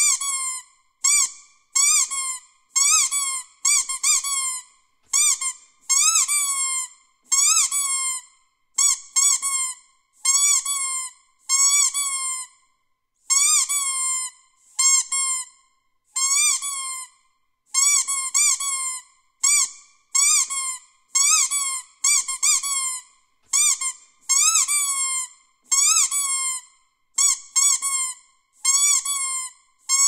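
Squeaky dog toy squeezed over and over: short, high squeaks that bend in pitch, about one a second, some coming in quick pairs.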